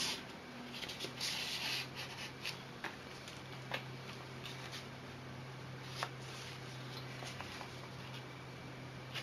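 Cardstock pages and paper tags of a handmade mini scrapbook being handled: a brief rustle and slide of paper about a second in, then a few soft taps and clicks as flaps are turned, over a faint steady low hum.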